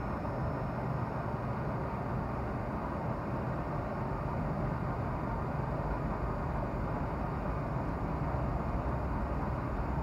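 Dust filter mesh tube forming machine running with a steady, even hum and no distinct knocks.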